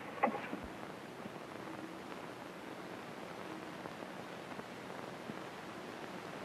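Steady hiss of an old optical film soundtrack, with a few faint knocks in the first half-second.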